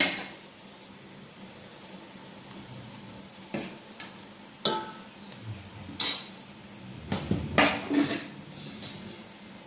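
Metal utensils knocking and clinking against a metal cooking pot in scattered sharp strikes, with a denser run of knocks about seven to eight seconds in.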